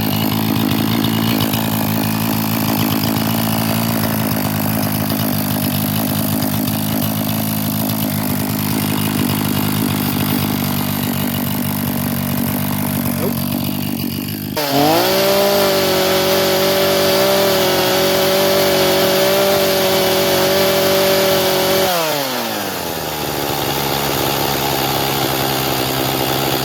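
Echo CS-500P two-stroke chainsaw engine idling, then about halfway through revved suddenly to a steady high speed for about seven seconds before winding back down to idle. The saw is being checked for an air leak, which the owner suspects from how it runs after a carburetor rebuild.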